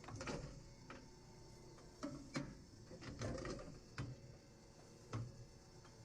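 Scattered faint knocks and clatter with some rustling, about seven in all, from lifting a heifer's sore front foot for hoof trimming.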